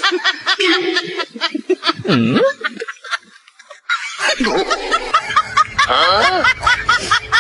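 Snickering laughter: quick runs of short pitched 'heh-heh' notes, quieter for a moment midway and then a longer, denser run in the second half.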